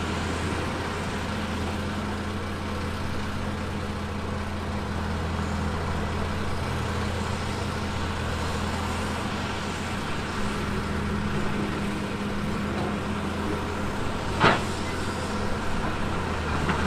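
Diesel engine of heavy earthmoving equipment running steadily at a constant speed, with one sharp clank about fourteen seconds in.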